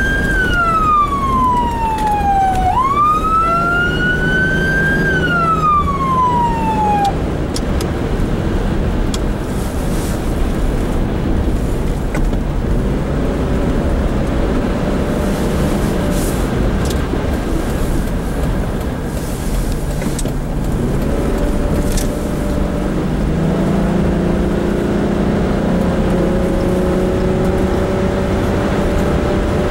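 Emergency vehicle wail siren heard from inside the cab: the pitch falls, rises and falls once more, then the siren stops about seven seconds in. After that, the vehicle's engine and tyre road noise carry on, with the engine note climbing slowly near the end.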